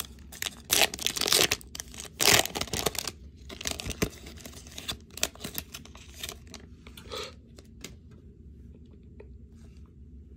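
A Topps Chrome Sapphire Edition foil card pack being torn open, with several loud rips in the first three seconds. The wrapper then crinkles as the cards are slid out, and the crinkling dies away about seven seconds in.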